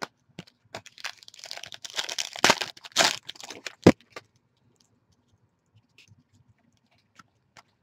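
Trading cards being handled and squared up in the hands: crinkly rustling and a quick run of clicks for about four seconds, ending in a sharp tap, then near quiet.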